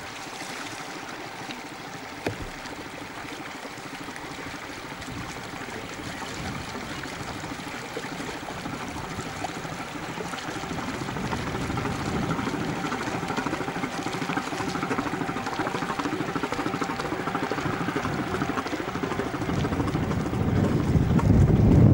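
Small motorboat's outboard engine running close by, mixed with the wash of water, growing gradually louder toward the end.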